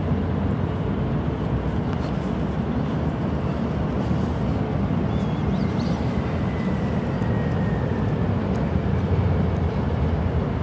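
Steady low rumble of city street ambience, with distant traffic and no single vehicle passing close.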